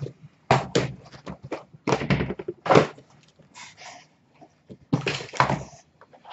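Cardboard boxes of trading cards being set down and stacked on a glass counter: a series of light thunks and taps, some of them in quick pairs.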